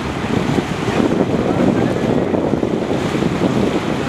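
Wind buffeting the microphone on a moving boat: a loud, steady, choppy rumble, with boat and water noise blended underneath.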